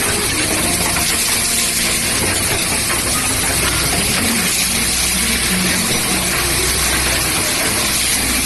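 Automatic cap assembly machine running: a steady, dense hiss of machinery noise with a low hum underneath.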